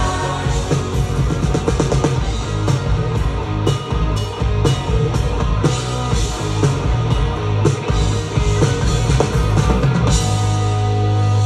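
Live rock band playing an instrumental passage without vocals, driven by a Yamaha drum kit and guitar; about ten seconds in, the band settles onto one long held chord.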